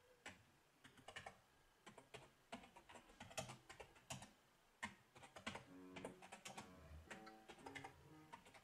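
Faint typing on a computer keyboard, irregular key clicks. Faint music with held notes comes in about halfway.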